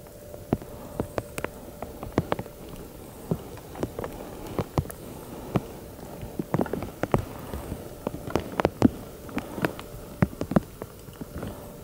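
Hailstones hitting rock and dry grass: scattered sharp ticks and taps at an uneven rate, growing denser in the second half, over a faint steady hum.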